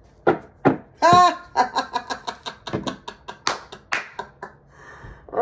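A woman laughing: a quick run of short bursts, then a couple of sharp breaths.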